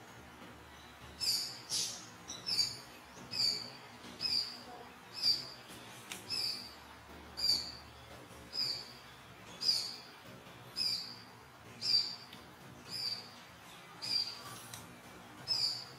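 A bird calling a short, high, slightly falling note over and over, about once a second, starting about a second in.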